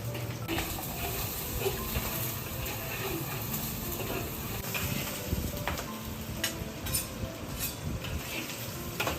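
A steady sizzling hiss like food frying, with a few sharp clicks about halfway through and again near the end.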